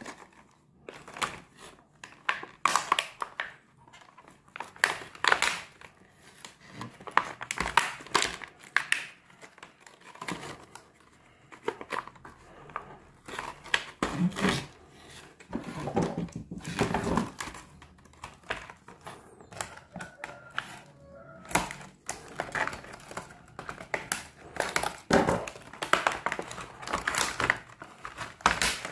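Rigid clear plastic blister packaging crackling and clicking as gloved hands bend and pry it open, an irregular run of sharp crinkles and snaps with some duller handling knocks around the middle.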